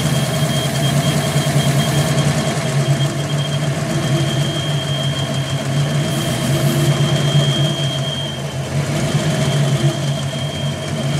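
5.0 V8 engine idling with a bad vacuum leak. A steady high whistle runs over the engine's low hum and drops out briefly about eight and a half seconds in.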